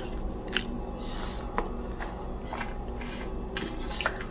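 A person chewing and biting crispy cooked sweet potato, with scattered short crunchy clicks over a steady low appliance hum.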